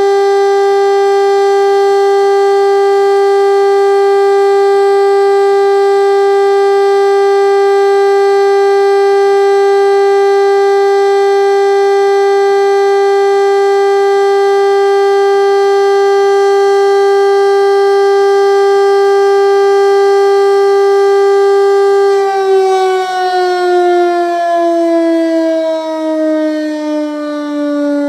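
City hall civil-defence air-raid siren holding a steady high wail for about twenty seconds, then winding down, its pitch falling slowly until the end.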